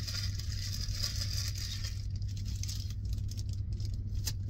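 Plastic zip bags of soft-plastic fishing baits crinkling and rustling as they are handled, with a sharp click near the end, over a steady low hum.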